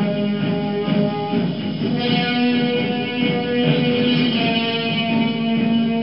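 Soundtrack music led by guitar, with held chords that change about two seconds in.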